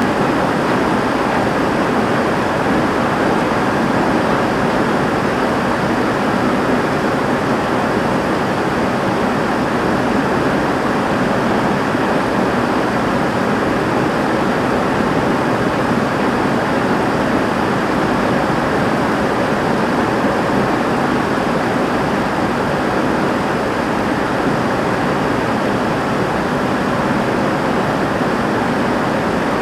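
Heavy rain falling steadily on a roof, with water running off it: a dense, even hiss that stays the same throughout.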